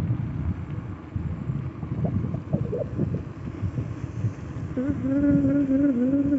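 Wind buffeting the microphone and tyre rumble from a mountain bike coasting fast down a paved lane. About three-quarters of the way in, a steady, slightly wavering humming tone begins and continues.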